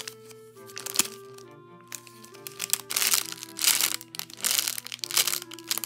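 Clear plastic packaging crinkling and crackling in irregular bursts as a bagged foam squishy is handled and squeezed, over soft background music.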